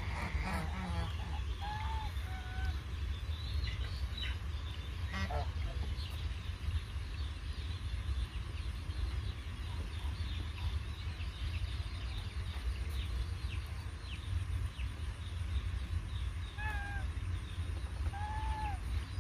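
Domestic geese honking: a couple of short calls about two seconds in and two more near the end, over a steady low rumble.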